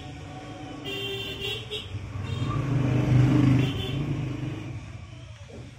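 A motor vehicle passing, with a brief horn toot about a second in; the engine noise swells to its loudest about three seconds in, then fades.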